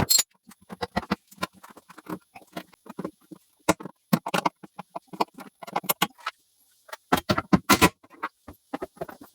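A run of irregular knocks, clicks and clanks, several a second, pausing about six seconds in before a louder cluster.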